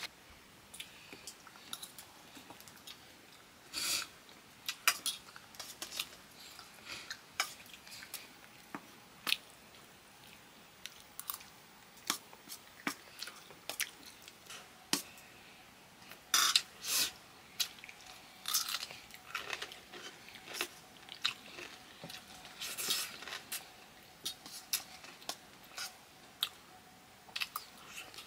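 Close-up eating sounds: chewing and biting, with irregular sharp clicks and scrapes of food and dishes throughout.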